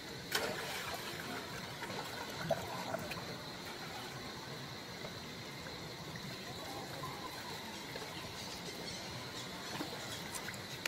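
Young long-tailed macaques swimming in a pond: water splashing and lapping, with a sharp splash about half a second in and a few short squeaks a couple of seconds later.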